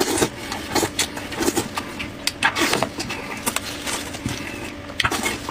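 A person eating sheep's head meat: chewing and lip-smacking with the mouth full, many short sounds at uneven intervals.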